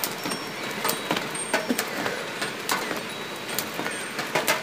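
Experimental soundscape: a steady noisy hiss with irregular sharp clicks and crackles, and brief high beeping tones now and then.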